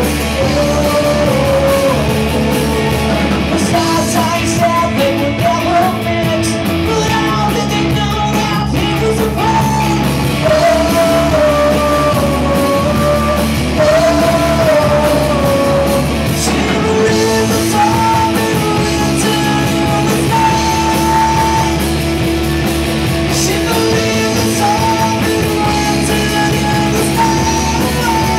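Live rock band playing: a man sings lead in long phrases over electric guitar.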